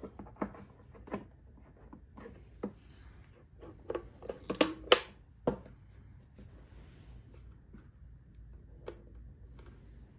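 Hands handling a metal CNC control box: scattered light clicks and knocks, with a quick cluster of sharper clicks about four to five seconds in. No fan starts up: with its power switch bypassed the controller still stays dead.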